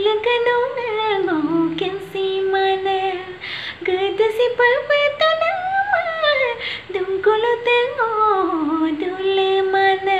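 A woman singing unaccompanied: long phrases that glide downward and settle on held notes, then climb again, with short breaths between phrases. The last held note fades near the end.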